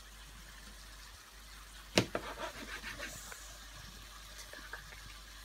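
Kitchen knife slicing through a maitake mushroom on a cutting board: a sharp tap of the blade on the board about two seconds in, then a short run of small crisp ticks as the blade cuts through the mushroom.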